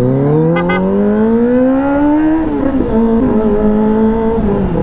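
Inline-four sport motorcycle engine under way. It revs up with a steadily rising pitch for about two and a half seconds, drops at a gear change, then runs at a steady pitch.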